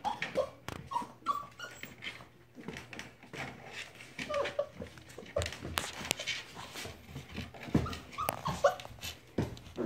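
Puppies whimpering in short, high squeaks that come in small clusters, with scattered clicks and scrapes from their movement in the pen.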